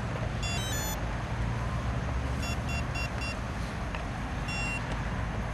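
Electronic beeps from an electric RC glider's motor speed controller: a short tune of a few notes, then four quick beeps at one pitch, then a single longer beep, the usual sign that the controller is powered up and armed. A steady low rumble runs underneath.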